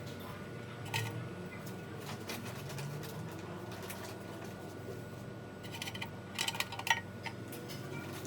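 A few sharp clicks and short rattles over a steady low hum: one click about a second in, and a cluster near the end.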